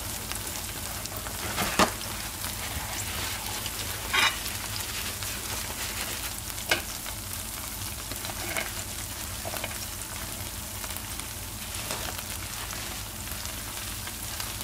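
Grilling cheese sizzling on a hot griddle, a steady hiss, with a few sharp clicks and scrapes of metal tongs working the cheese on the plate.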